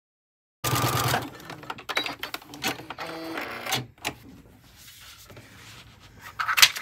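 Domestic sewing machine stitching fold-over elastic onto nylon mesh, its motor whirring under rapid needle clatter; it starts suddenly about half a second in and stops about four seconds in. After that come quieter handling noises, with a brief louder one near the end.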